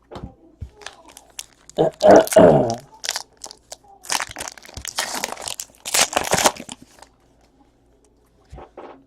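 Foil trading-card pack wrappers being torn open and crinkled, in irregular crackling bursts with small clicks between; the loudest tearing comes about two seconds in, with a longer run of crinkling in the middle.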